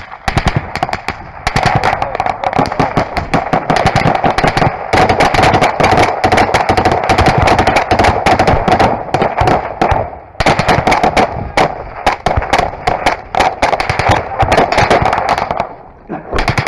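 Heavy automatic small-arms fire: rapid, overlapping bursts of gunshots, close and loud, thinning briefly about ten seconds in and again near the end before picking up.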